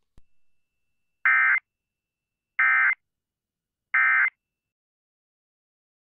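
Emergency Alert System end-of-message signal: three short bursts of buzzy digital data tones about a second apart, marking the end of the alert.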